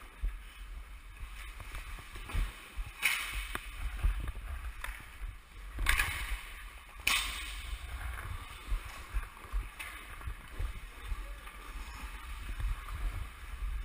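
Ice hockey skate blades carving and scraping the ice as the wearer skates, over a steady low wind rumble on the worn camera's microphone. A few sharper scrapes stand out about three, six and seven seconds in.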